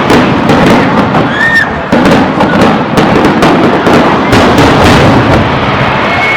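Aerial fireworks going off in a rapid, overlapping barrage of bangs and crackles, with a short whistle about a second and a half in.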